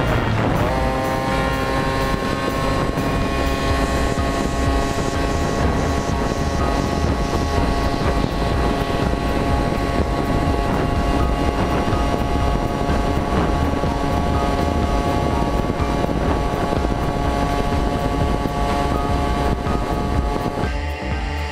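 Piaggio Ciao moped's tuned single-cylinder two-stroke engine, fitted with a Malossi 46.5 mm cylinder kit and an MHR reed valve, running at steady high revs under way, with wind on the microphone. The sound changes about a second before the end.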